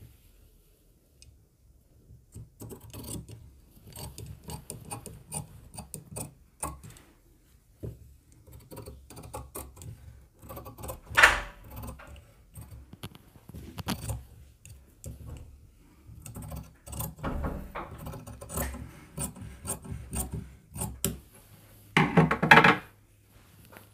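Fabric scissors cutting through blouse cloth along a chalk line: irregular snips and scrapes of the blades, with cloth rustling as it is handled. There is a sharp click about halfway through and a short louder sound near the end as the cut piece is lifted away.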